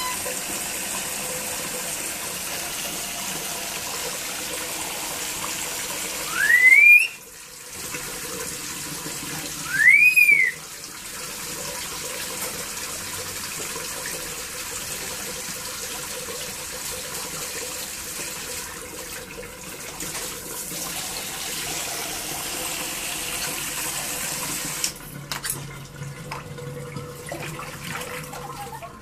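Water running steadily like a tap. Twice, about six and ten seconds in, a loud whistle rises sharply in pitch. Near the end the rush of water gives way to a few clicks and knocks.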